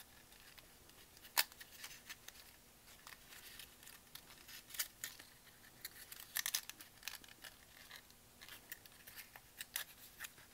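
Paper rose petals crinkling and crackling as fingers pinch and press them into place, in scattered short, crisp rustles, the sharpest one about a second and a half in.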